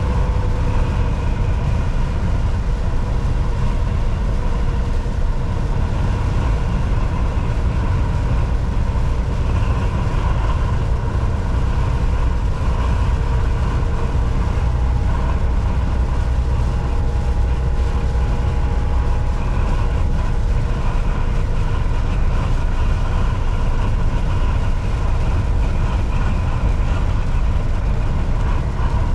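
Volvo VNL 760 semi truck cruising at highway speed: a steady low engine drone with tyre and road noise, and faint steady tones over it.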